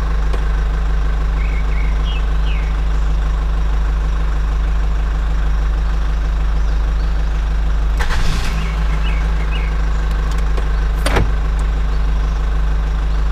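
A motor running with a steady low drone, with two short clatters about eight and eleven seconds in.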